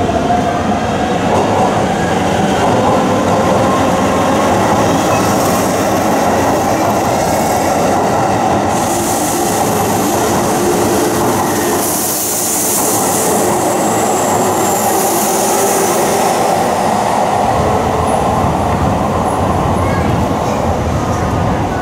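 Keikyu 600 series electric train running past close by along a station platform: steady wheel-on-rail running noise, with a high-pitched wheel squeal in the middle stretch.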